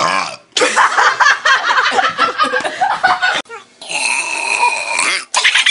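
Hard laughter right after a long belch whose tail ends just as it begins. About four seconds in, a held, higher-pitched vocal sound lasting over a second breaks in, then the laughter resumes.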